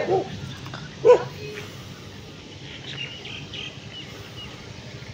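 A village dog barking at a person on foot while chasing him. The tail of a run of barks sounds at the start, followed by one more sharp bark about a second in.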